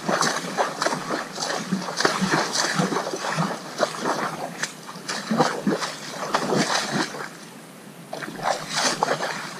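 Horse pawing at a muddy puddle with a front hoof, splashing and sloshing the water in repeated, irregular strikes, with a brief lull about eight seconds in.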